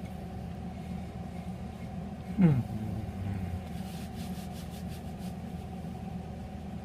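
Steady low hum of room noise, with one short vocal sound falling in pitch about two and a half seconds in, and a few faint rapid ticks a little later.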